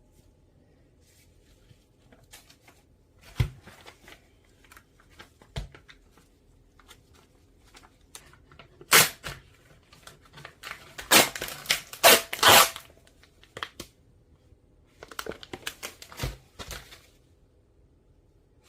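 Food packaging being handled and torn open: scattered crinkling and rustling with a few knocks, and louder tearing about nine seconds in and again from about eleven to thirteen seconds.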